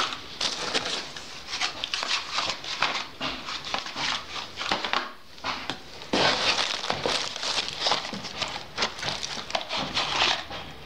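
Plastic-wrapped firecracker packets crinkling and a cardboard box rustling as hands rummage through it and lift packets out. There is a short lull about five seconds in.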